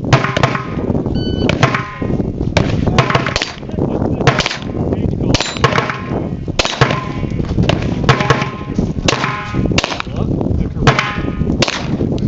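A string of about fifteen handgun shots, fired quickly and unevenly, with many followed by the metallic ring of steel targets being hit.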